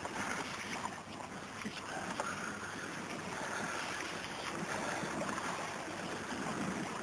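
Wind buffeting the microphone over the steady wash of sea surf: a continuous rushing noise.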